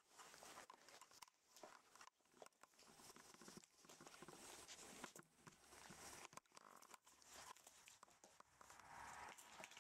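Faint rustling and scratching with many small clicks from a five-week-old rough collie puppy at play, mouthing and tugging at a plush toy and scrabbling on a person's lap.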